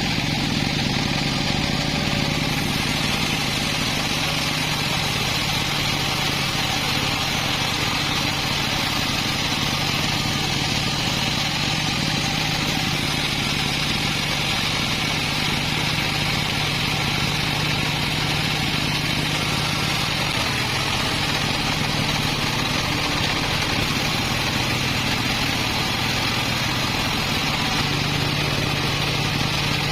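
A sawmill engine running at a steady speed, with an even, unchanging hum.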